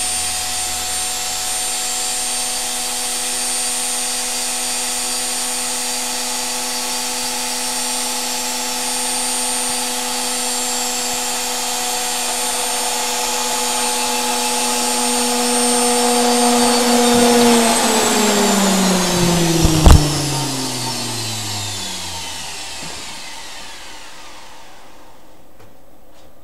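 A 200-watt electric motor driving a washing-machine motor rebuilt as a generator runs with a steady hum and high whine. About 17 seconds in, all its pitches fall together as the rig winds down, and a loud knock comes a couple of seconds later. The owner puts the stop down to the drive coupling jumping out.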